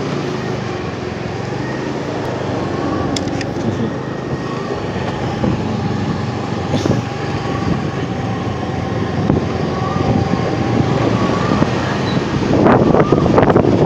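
Steady road-vehicle and traffic noise. Near the end, wind starts buffeting the microphone and grows louder.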